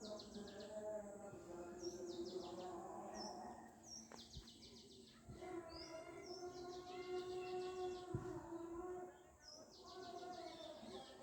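Birds chirping outdoors: short, high, rapid trills repeat every second or two, over a fainter, lower steady tone in the background.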